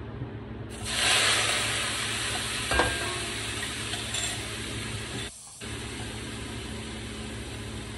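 Sofrito of tomatoes and peppers frying in oil in a pan, with a sudden loud sizzle about a second in that eases into a steady sizzle. A single clink of a utensil sounds near the three-second mark.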